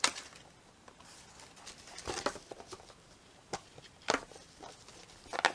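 A few sharp clicks and brief rustles from handling a metal binder clip and a pen against a fabric-covered cardboard folder. The loudest click comes right at the start.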